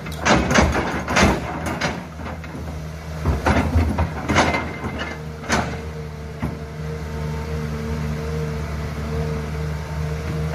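Tracked excavator's diesel engine running steadily while its bucket digs into a clay bank, with a string of sharp knocks and scrapes over the first six seconds. A steady whine joins about halfway through.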